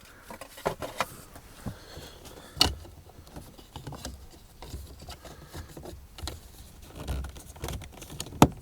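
Scattered plastic clicks and taps of a replacement door-handle piece being pushed onto a BMW F80 M3's door handle, with a louder click a few seconds in and a sharp snap near the end as it pops into place.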